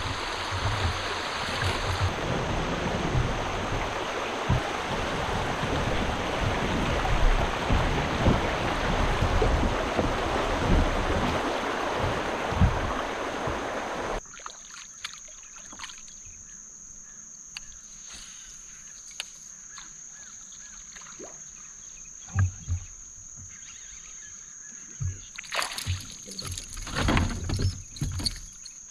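Sounds from a fishing kayak on the water. For about the first half there is a loud, even rushing noise with low thumps, which cuts off abruptly. A quieter stretch follows, with a steady high whine in the background and scattered knocks and clicks against the kayak that grow busier near the end.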